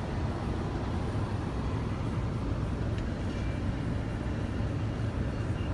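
Steady low rumbling background noise with no distinct events, apart from one faint tick about three seconds in.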